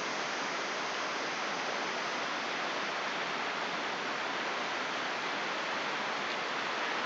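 Steady, even rushing noise of surf on a pebble beach, with no single waves standing out.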